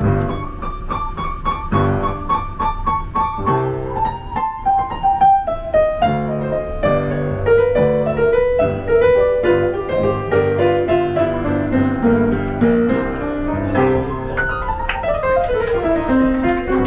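Piano being played live: a melody that steps downward over the first several seconds, then flowing notes over a moving bass line.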